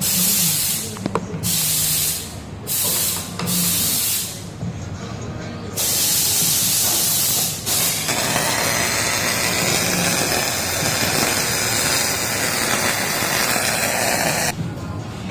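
MIG welding arc on aluminum, a loud steady crackling hiss that starts and stops in a few short bursts, then runs for one long bead of about six seconds.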